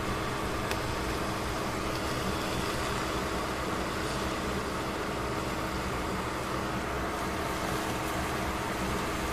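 Steady hiss and hum of a steel pot of pork and cabbage heating on the stove, with a faint steady tone and the odd small tick.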